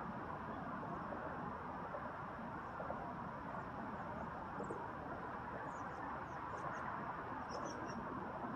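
Faint, high, short bird chirps, several in quick clusters from about halfway through, over a steady rushing background hiss.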